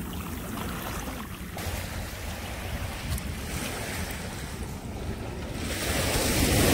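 Surf washing onto a beach, with wind buffeting the microphone; the noise swells near the end.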